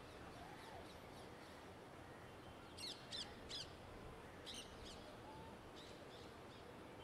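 Bird calls: a quick run of three sharp, high calls about three seconds in and another about a second later, with fainter calls around them, over a faint steady hum of distant city traffic.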